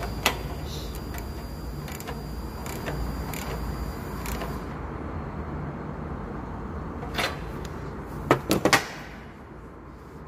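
Socket ratchet and spark plug socket working on a walk-behind cultivator's spark plug: scattered light metal clicks, then three sharp clanks close together about eight and a half seconds in.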